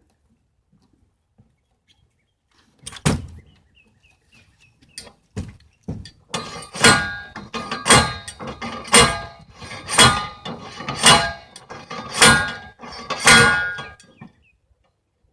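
Metal dock-leg pipes being pounded down into the lake bottom. There is one sharp strike about three seconds in, then a few lighter knocks, then a steady series of about seven ringing metal blows, roughly one a second.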